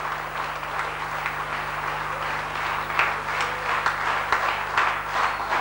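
Audience applauding, the clapping growing stronger about halfway through, over a steady low hum.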